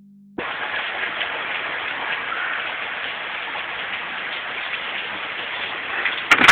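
Very heavy rain pouring down in a steady hiss, with two sharp knocks just before the end.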